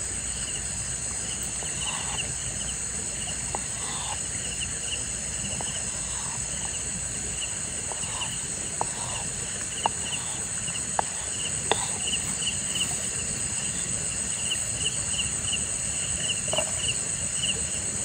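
Night insects, crickets among them, calling steadily: a continuous high trill with a row of short repeated chirps over it. An even rush of running stream water lies underneath, and a few sharp clicks or knocks stand out around the middle.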